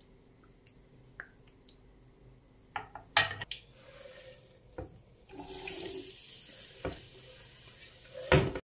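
Kitchen tap running into a sink, the water growing stronger about halfway through, with small clicks and knocks of dishes or utensils being handled and a louder knock just before it cuts off.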